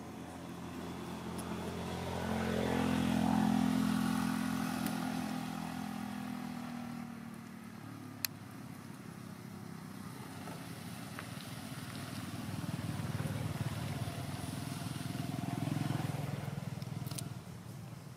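A motor vehicle's engine, growing louder to a peak a few seconds in and fading, then rising again later as another pass or approach. A single sharp click comes about 8 seconds in.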